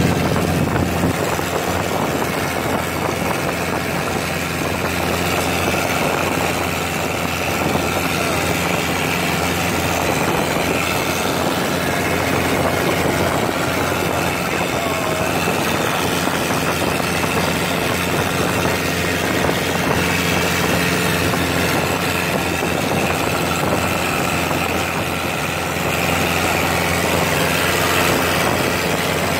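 Motorboat engine running steadily as the boat travels, a constant low drone mixed with the rush of water and wind.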